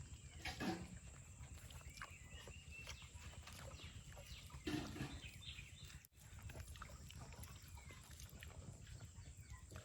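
Faint outdoor background with a few brief animal calls, the two loudest about half a second in and near five seconds in, among scattered short chirps.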